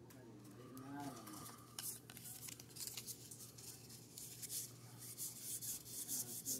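A stack of baseball cards being thumbed through by hand: a quick, irregular run of soft card-stock flicks and rubs, growing busier and louder in the second half.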